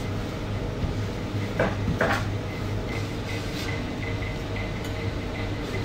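Metal pizza pan being handled while it is oiled with a brush: two clattering metal knocks about one and a half and two seconds in, then a few light ticks, over a steady low hum.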